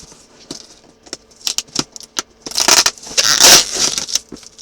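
A cardboard shipping box being worked open by hand: a few light clicks and taps, then two loud stretches of scraping and tearing about halfway through as the box is forced open.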